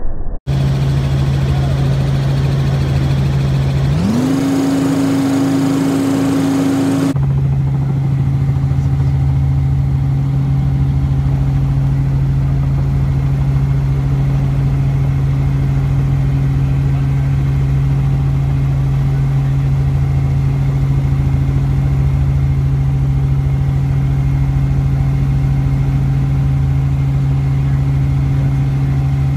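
Steady drone of a Robinson R44 helicopter's six-cylinder piston engine and rotors, heard from inside the cabin. A few seconds in, the pitch rises and holds higher for about three seconds, then snaps back abruptly to the steady drone.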